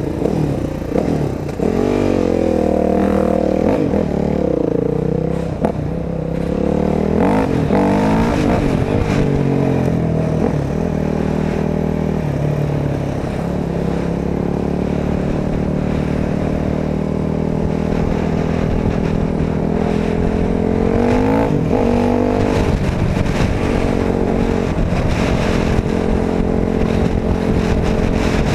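Dirt bike engine running under the rider, revving up and shifting through the gears with its pitch climbing and dropping several times in the first ten seconds, then holding a steady pitch at cruising speed. About three quarters of the way in it revs up and shifts again.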